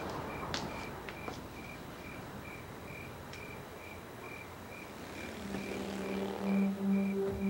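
Crickets chirping in a steady, even rhythm, about two chirps a second, with a few faint clicks in the first second and a half. Low sustained music notes come in about five seconds in.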